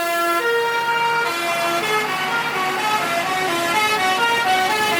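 Bus telolet horn, a multi-tone musical air horn, playing a tune of steady stepped notes. The first notes are held longer; from about two seconds in they come quicker and closer together.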